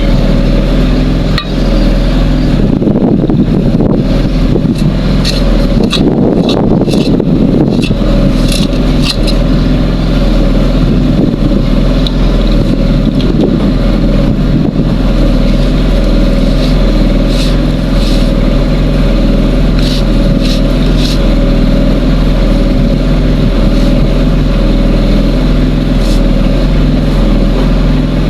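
An engine running steadily at an even speed, with scattered light clicks and knocks over it.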